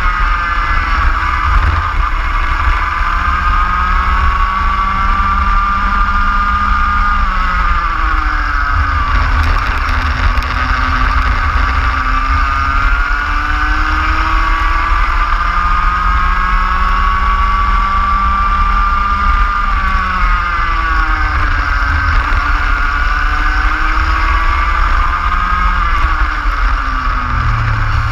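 Racing kart engine at full throttle through a lap, its note climbing steadily along each straight and dropping sharply three times as the kart slows for corners, with a steady low rumble underneath.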